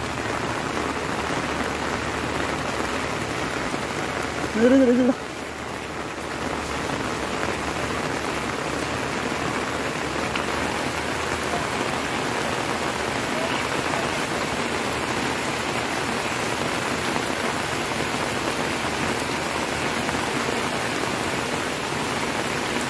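Heavy rain falling steadily, an even hiss of drops. About five seconds in comes a single brief wavering call.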